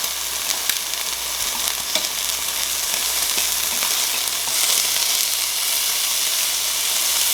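Meat sizzling steadily on a tabletop Korean barbecue grill, fat spitting in a steady hiss, with a few faint clicks; the sizzle swells a little about halfway through.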